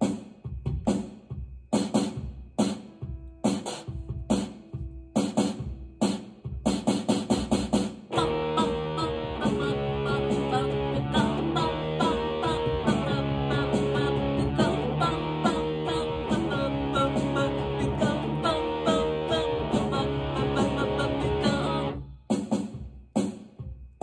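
Les Paul-style electric guitar played through an Effects Bakery New Ginger Fuzz pedal, giving a fuzz-distorted tone. It plays short choppy chord stabs for about eight seconds, then a dense passage of held notes, and turns choppy again about two seconds before the end. The fuzz stands in for the flanger usually used on this part of the song.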